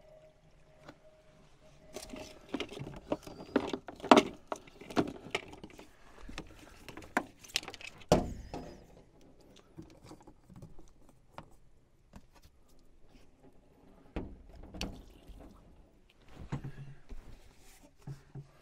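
Hands working a plastic hose fitting loose from a Shurflo RV 12-volt water pump: scattered clicks, knocks and rattles, busiest and loudest during the first half, with a few more handling knocks later.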